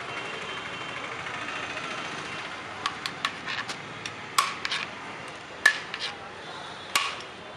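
Metal serving spoon clinking against the side of a large aluminium cooking pot while biryani rice is scooped, a string of sharp irregular clinks through the second half over steady background noise.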